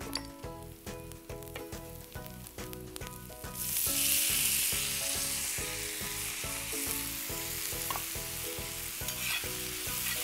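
A knife chops tomatoes on a wooden block with quick knocks. About three and a half seconds in, a loud sizzle starts suddenly as chopped tomatoes go into hot oil in a pan with onions. The sizzle keeps going as they are stirred with a spatula.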